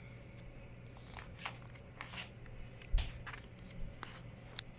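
Faint rustling and soft clicks of picture-book pages being handled, with a louder knock about three seconds in.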